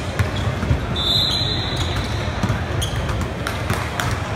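Basketball game on a hardwood gym court: a ball bouncing and sneakers squeaking, over spectators' chatter in a large echoing hall.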